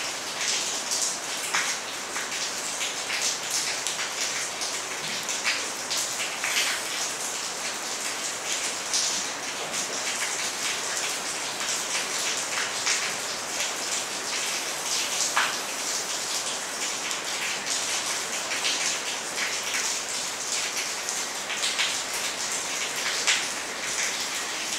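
A steady, even hiss with scattered light ticks, unchanging throughout.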